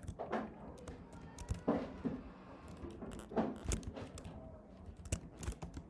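Computer keyboard keystrokes and clicks, scattered and irregular.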